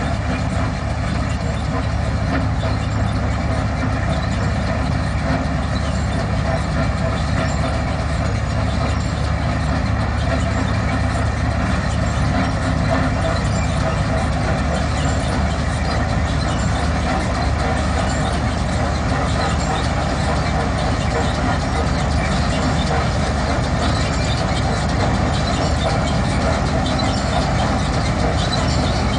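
Punni groundnut combine harvester working in the field: its engine and threshing machinery run steadily and loudly as the pickup reel feeds groundnut plants in.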